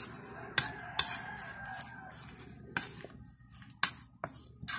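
Metal spoon clinking and scraping against a ceramic plate while stirring a wet batter of chopped moringa leaves and beaten egg: about six sharp clinks, irregularly spaced.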